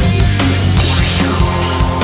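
Loud background music: heavy, distorted rock with guitars and a steady bass.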